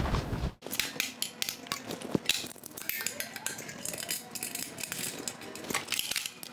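Small metallic clicks and clinks of stainless-steel hose fittings being handled and fitted together at the fermenter's bottom port and the pump.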